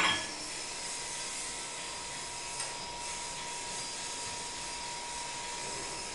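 A sharp metal clank right at the start and a faint click about two and a half seconds in, as parts and hand tools are handled on a steel pump body and fixture plate, over a steady hiss with a faint high hum.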